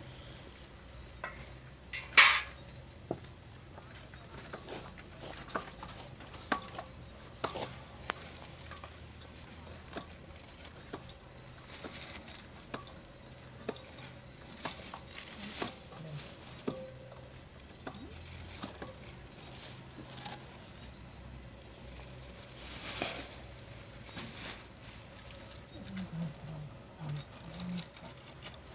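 A cricket trilling steadily in a high, unbroken tone, with scattered small clicks and rustles of handling; one sharp knock about two seconds in is the loudest sound.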